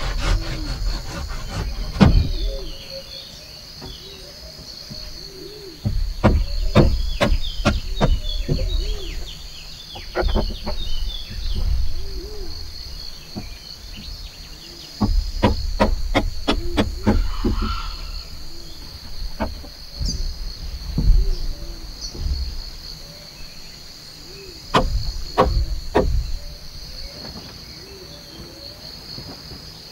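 Steady high-pitched drone of forest insects, crickets or similar, overlaid by bursts of sharp knocks and thumps. The knocks come in quick runs of several a second, twice grouped into longer runs, once a few seconds in and again about halfway.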